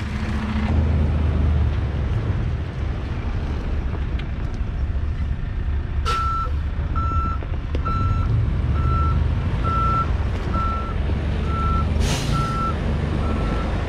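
Heavy dump truck's diesel engine running, with its backup alarm beeping about once a second from about six seconds in as the truck reverses. A sharp hiss comes when the beeping starts and another about twelve seconds in.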